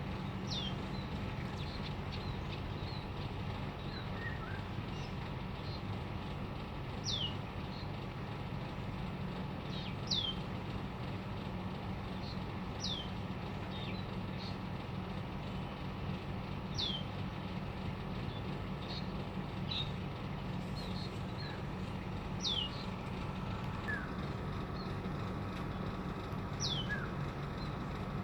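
A small songbird repeatedly giving a sharp, downward-sliding whistled call, one every three to four seconds, with fainter short chirps between, over a steady low hum.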